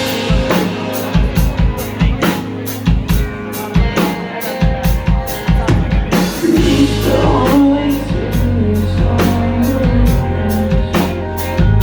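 Live rock band playing, a drum kit keeping a steady beat; about six seconds in the sound fills out as a sustained bass and more pitched parts come in.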